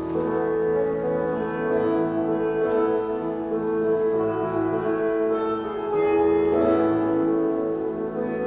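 Slow instrumental music with long held chords; the chord changes about six seconds in.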